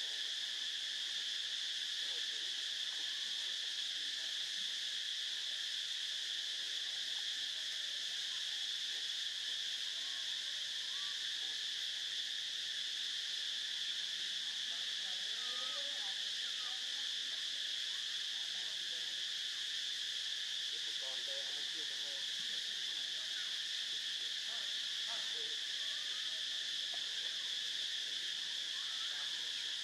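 Steady, high-pitched chorus of insects running without a break, with faint wavering calls underneath in the middle stretch.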